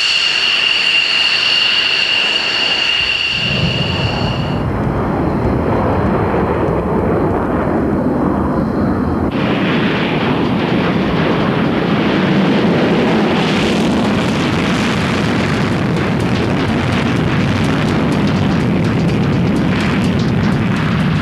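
F-16 Fighting Falcon jet engine: a high whine with two steady tones for about the first four seconds, then a loud, rough roar at takeoff power that turns brighter about nine seconds in.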